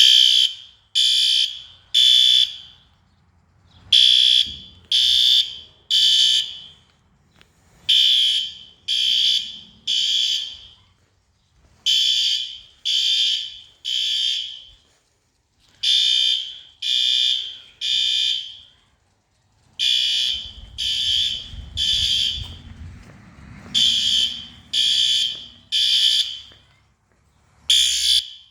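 System Sensor P2RL horn strobe sounding the temporal-3 evacuation signal at its low-volume setting: three high-pitched horn blasts about a second apart, then a pause, repeating every four seconds. The alarm was set off by a manual pull station.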